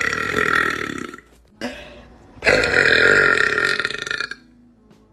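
A woman belching: a long burp tailing off about a second in, then a second long burp from about two and a half seconds in that lasts nearly two seconds.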